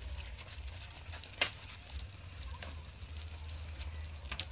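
A heavy kassi digging hoe chopping into loose earth, with one hard strike about a second and a half in and fainter knocks and crumbling of clods around it, over a steady low hum.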